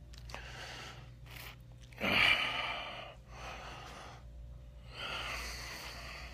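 A man breathing heavily, with a few loud breaths, the loudest about two seconds in, while he walks without his walker. A faint steady hum sits underneath.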